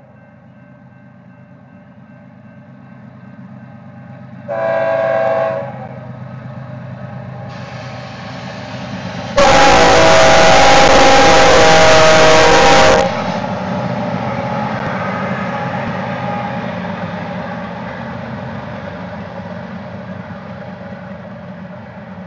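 Diesel locomotive air horn sounding for a grade crossing: a short blast about five seconds in, then a long, very loud blast from about nine to thirteen seconds. After it, the locomotives and the loaded grain hopper cars rumble steadily past.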